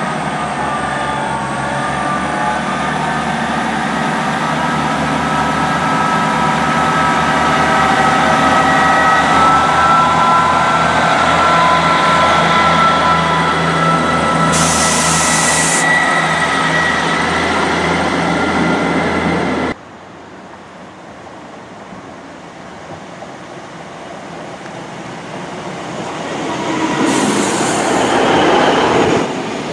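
Northern Class 158 diesel multiple unit running along the platform, its engine a steady set of tones, with a brief hiss of air about halfway through. After an abrupt cut, a Class 150 diesel multiple unit draws into the platform, growing louder, with a burst of hiss just before the end.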